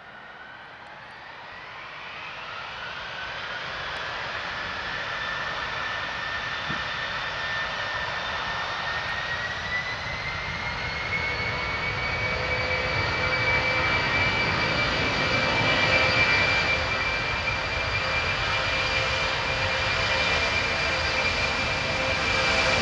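Boeing C-17 Globemaster III's four Pratt & Whitney F117 turbofans spooling up to takeoff power: a whine rises in pitch and levels off about ten seconds in, over a jet rumble that keeps growing louder as the takeoff roll begins.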